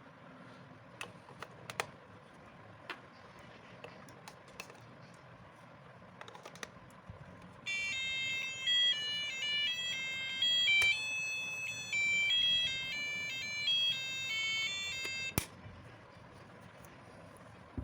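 A few light handling clicks, then a digital alarm clock's buzzer plays an electronic beeping tune of stepped notes for about eight seconds, cut off by a sharp click.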